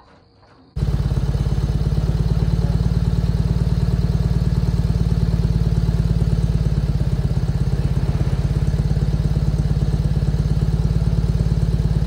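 A motor running steadily with a fast, even pulse, starting abruptly a little under a second in.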